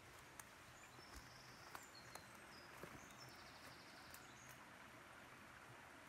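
Near silence: faint birdsong of short high notes, with a few soft clicks.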